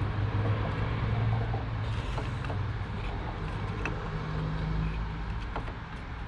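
Steady low vehicle engine hum, with a few light metallic clicks as a tapered pipe-thread plug is tightened into the winch gearbox.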